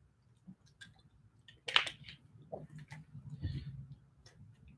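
A person drinking from a clear plastic water bottle: scattered small clicks and handling noises, a sharper click a little under two seconds in, and a soft breathy sound about three and a half seconds in.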